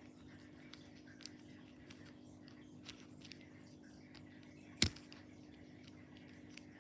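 Small clicks from handling small plastic pieces, with one much louder sharp snap a little under five seconds in, over a faint steady hum.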